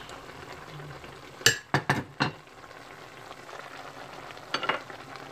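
Diced okra and eggplant sizzling in the hot, nearly dry sauce of a stainless steel pot, with a quick cluster of sharp clinks about one and a half to two seconds in and two more near the end, as the plate knocks against the pot.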